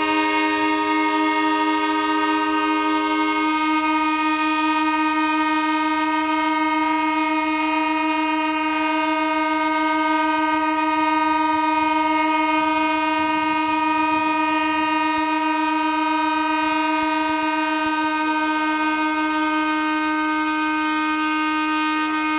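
Three restored railway vehicles sounding their train horns together in one long held chord. One of the tones drops out about three seconds in, and the rest hold steady.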